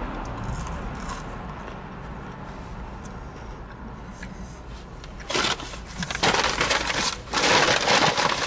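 Quiet chewing of a crispy fried chicken fry. From about five seconds in, a paper fast-food bag rustles and crinkles loudly in bursts as it is handled.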